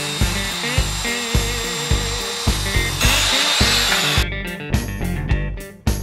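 Background music with a steady beat over a Bosch sliding miter saw running and cutting through a pine board; the saw noise stops abruptly about four seconds in, leaving the music alone.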